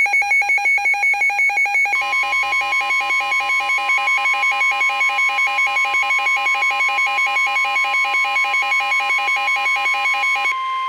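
NOAA Weather Radio alert sounding for a severe thunderstorm warning: rapid electronic alarm beeping, about five beeps a second, joined about two seconds in by the steady weather-radio warning alarm tone. The beeping stops just before the end while the steady tone carries on.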